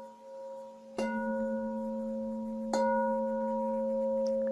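Singing bowl struck twice, about a second in and again near three seconds in, each strike ringing on in steady overlapping tones over the still-sounding ring of a strike just before. The strikes mark the start of the meditation.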